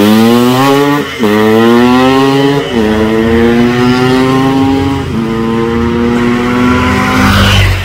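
Yamaha RX-King single-cylinder two-stroke motorcycle accelerating hard through the gears: the engine note climbs, drops sharply at each of three upshifts and climbs again, then the throttle closes near the end. The bike runs a stainless standard-racing exhaust that keeps its silencer.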